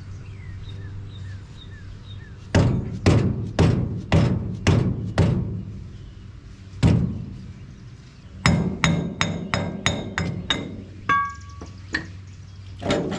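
Hammer blows on the metal rear wheel hub of a truck: five strikes about half a second apart, one more a moment later, then a quicker run of about eight sharper strikes with a metallic ring, ending in a short ringing clink.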